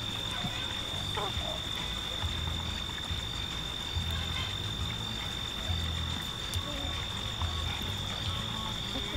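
Outdoor ambience of a backyard chicken run: a steady high-pitched tone with low pulses every second or two and a few faint short clicks.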